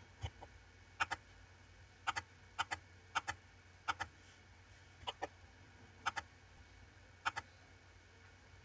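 Computer mouse and keyboard clicks, mostly in quick pairs about once a second, over a faint steady hum.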